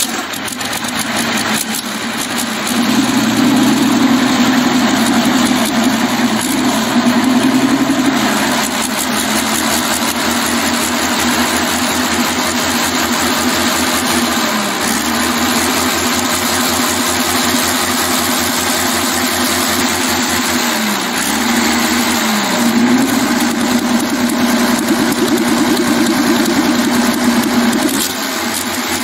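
Soviet V-2-34 V12 tank diesel running on short open exhaust stacks, freshly started. Its speed climbs over the first few seconds, then dips and picks up again a couple of times.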